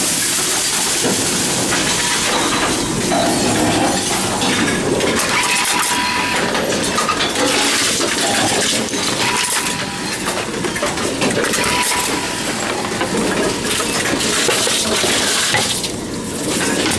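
Envipco CF-1500 reverse vending machines running: a loud, continuous mechanical clatter of cans and bottles being taken in and crushed.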